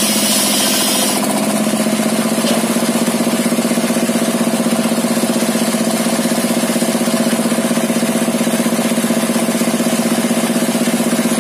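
A single-cylinder Dompeng diesel engine drives a circular saw table, running steadily with a fast, even beat. Until about a second in, the spinning blade hisses as it finishes a cut through a timber beam; after that the blade runs free and only the engine is heard.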